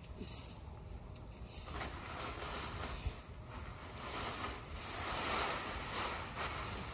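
Gusty wind buffeting the microphone with a low rumble, and a rushing noise that swells from about two seconds in and fades near the end, with dry leaves rustling as they are raked into a plastic bag. A single sharp knock about three seconds in.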